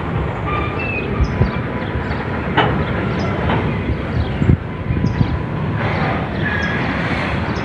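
Freight train of open-top wagons rolling past slowly: a steady rumble of steel wheels on rail with irregular knocks and clanks.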